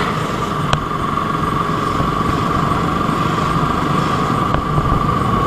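KTM motorcycle engine running steadily while the bike is ridden, under road and wind noise.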